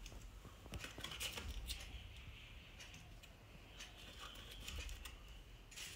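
Light clicks and rustling of a small cardboard sweet box being handled as pieces of sweet are picked out and set in a bowl, with a sharper click near the end.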